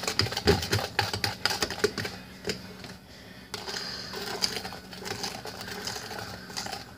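Egg whites being hand-whisked in a plastic mixing bowl: fast, rapid clicking strokes of a metal whisk against the bowl, easing off briefly about three seconds in, then picking up again.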